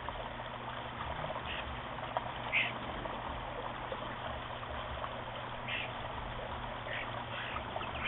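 Water trickling over the rocks of a small backyard waterfall into a shallow pool, with a few short, high bird chirps scattered through it.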